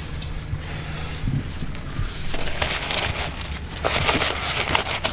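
Crinkling aluminium foil and a rustling paper coffee filter as hands press the filter into a foil-lined plastic cup. The crinkling comes in irregular bursts starting a little over two seconds in.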